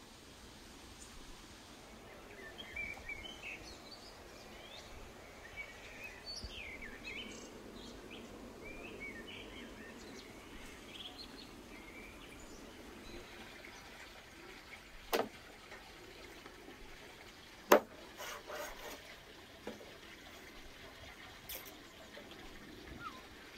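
Small birds chirping over a faint steady rush of water. Later come a few sharp knocks, the loudest about 18 seconds in.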